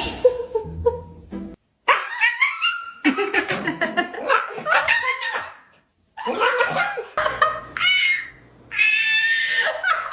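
A pet animal's high, wavering cries, several in a row with short pauses between them, the last one held longer.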